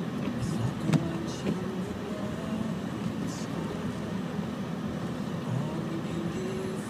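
Car driving slowly on a snow-covered road, heard from inside the cabin: steady low engine and tyre rumble, with a single click about a second in.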